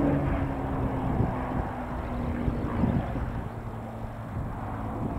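Hawker Hurricane Mk XIIa's Packard-built Merlin V12 engine droning steadily as the fighter banks overhead in a display. The engine note slowly falls in pitch and grows a little fainter after the middle.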